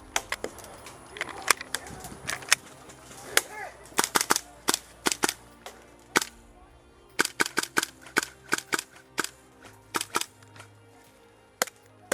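Airsoft guns firing in an exchange: sharp pops in single shots and quick strings, irregularly spaced, busiest about four seconds in and again from about seven to ten seconds in.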